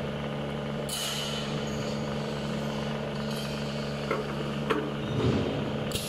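Pneumatic syringe plugging machine: a short burst of compressed-air hiss about a second in and another near the end, over a steady low hum, with a couple of light clicks between four and five seconds.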